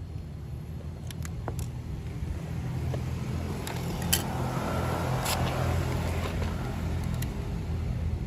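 Radio-controlled model truck running over rough ground: a steady low motor hum with scattered clicks and crunches, growing louder around the middle.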